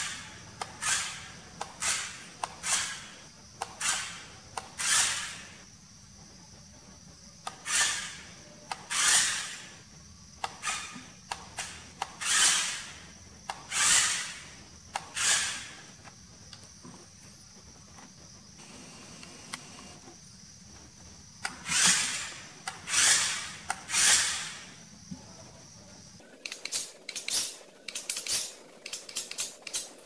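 Electric motor and gearbox of a remote-control rock crawler toy truck whirring in short bursts as the throttle is pulsed, each burst swelling and cutting off, about one a second with pauses between. Near the end the bursts come quicker and choppier.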